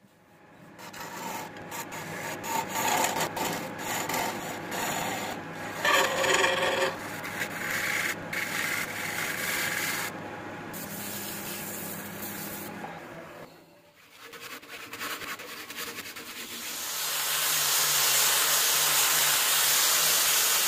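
A turning tool scraping and cutting a jackfruit-wood vase spinning on a wood lathe: uneven rasping over the lathe's steady low hum. After a short lull, an angle grinder with a sanding disc starts up and runs steadily, sanding the wood.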